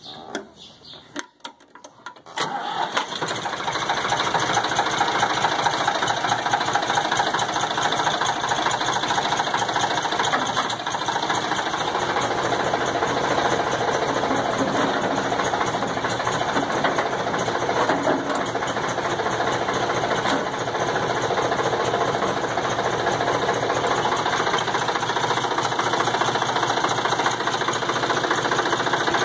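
A late-1960s farm tractor's engine starts a couple of seconds in, after a click, then settles into running steadily.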